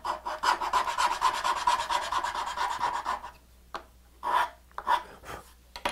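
A hand file rasping on the side of a wooden finger-joint pin to take it down a hair so the box joint will fit. It goes as a steady run of filing for about three seconds, then a few short, separate strokes.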